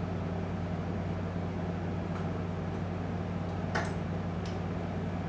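Steady low hum of room tone, with a couple of faint short clicks in the second half.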